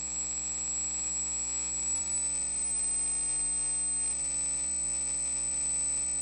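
Marshall JMP 1987 50-watt valve amp, turned all the way up into a 4x12 cabinet, squealing with a steady, very high-pitched tone over hum and hiss. This is an oscillation that the owner traced to a junky HOSA jumper cable.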